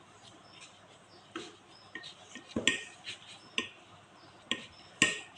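Scattered light knocks and clinks of kitchen utensils against a wooden board as layered dough is rolled up by hand. The loudest clinks come about halfway through and near the end, a couple with a short metallic ring.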